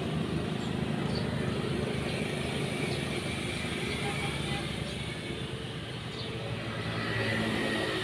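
Steady low background rumble, with a few faint high chirps of small birds over it.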